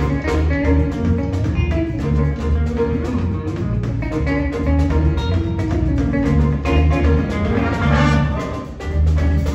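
Jazz big band playing: saxophones, brass, piano and vibraphone over a rhythm section, with a strong repeating bass line.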